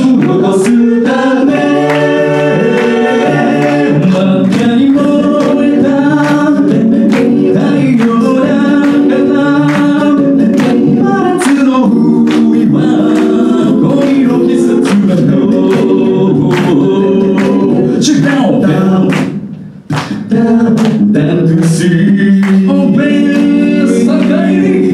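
Live a cappella group singing in close harmony, with a sung bass line and a vocal-percussion beat underneath. The voices briefly drop out about three-quarters of the way through, then come back in.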